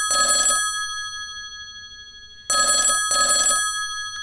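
Telephone ringing in a double-ring pattern: a ring-ring ends about half a second in, and a second ring-ring comes about two and a half seconds in. The bell-like tones ring on briefly after each ring.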